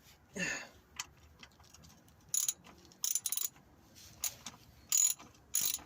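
Ratchet wrench clicking in short bursts, a stroke every second or so, coming quicker near the end.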